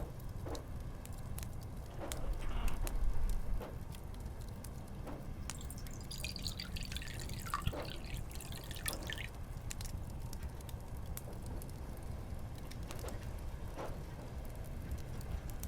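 Water dripping and trickling, with a quick run of drips about six to nine seconds in, over a low steady background scattered with faint clicks. A louder low muffled rumble about two to three and a half seconds in is the loudest moment.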